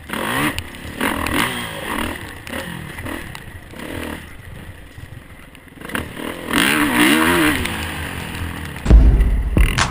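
Dirt bike engine revving up and down as it is ridden over rough dirt, the pitch climbing and falling with the throttle. It eases off for a couple of seconds midway, then is opened up again. About a second before the end, music with a heavy bass beat cuts in.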